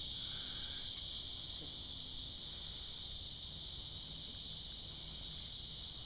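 Steady high-pitched chorus of insects, a continuous buzz with no breaks.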